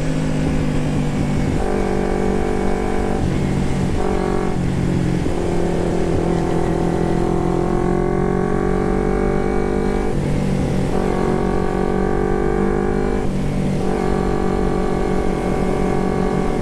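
Kawasaki Ninja 250 carburetted parallel-twin running on the move through a Termignoni exhaust. The engine note climbs and drops in steps with several short breaks, as on gear changes, over a low rumble.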